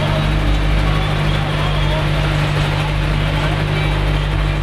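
Steady drone of a kempang's engine, a wooden passenger boat under way, heard from inside its covered cabin: a constant low hum over rumble, with faint passenger chatter in the background.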